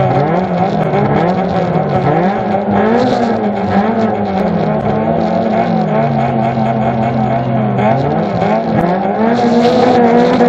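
Suzuki Swift GTI demolition-derby car's engine revved up and down again and again while the car stands still. It settles at a steady speed for a couple of seconds past the middle, then is raised and held higher near the end.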